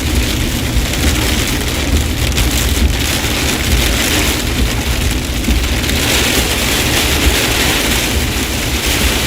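Heavy thunderstorm rain pelting a moving truck, heard from inside the cab: a steady hiss of rain over a low rumble from the truck on the wet road.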